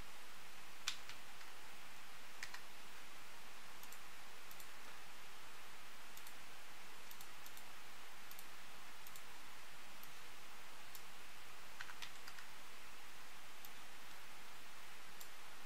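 Scattered clicks of a computer mouse and keyboard keystrokes, sparse and irregular, with a few louder ones, over a steady hiss.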